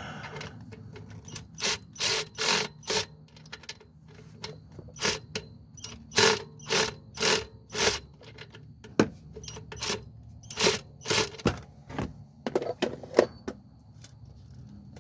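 Ratchet wrench turning a bolt while fitting an alternator, clicking in short bursts of strokes with pauses between them.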